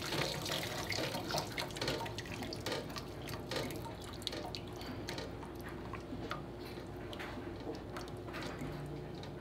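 Chicken broth dripping from a stainless steel colander into a bowl of broth, many quick small drips that thin out and grow quieter after the first few seconds as the colander drains.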